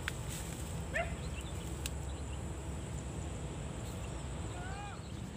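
Faint distant animal calls, a few short cries that rise and fall in pitch, about a second in and again near the end, over a steady low background rumble.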